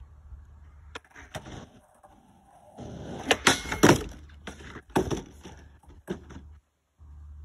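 Skateboard wheels rolling, then rattling loudly over a wooden plank deck about three seconds in, with several sharp clacks of the board on the planks. A few single knocks follow as the board stops.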